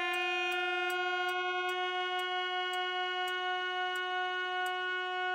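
A reed pipe of a pipe organ's trumpet stop sounding a single held F sharp above middle C, steady and bright with a slight wavering in loudness. A string of light ticks runs over it while the pipe is being tuned to a reference pipe.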